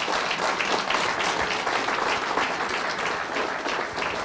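Audience applauding: dense, steady clapping that begins to ease off near the end.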